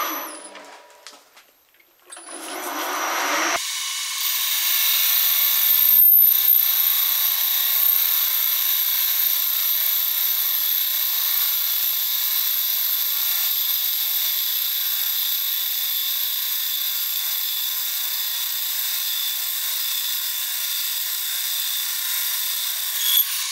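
Metal lathe boring out the bore of a cast aluminium blank with a boring bar: a steady cutting and machine noise with a thin, high whine and no bass. It drops away almost to nothing near the start and comes back about two seconds in.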